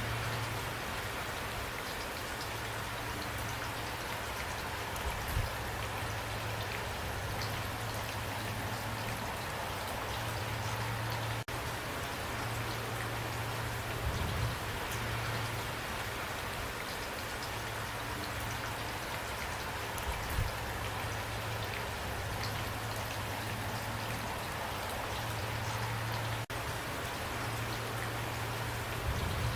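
Steady rain falling, a dense even hiss of drops, with a low drone that comes and goes underneath.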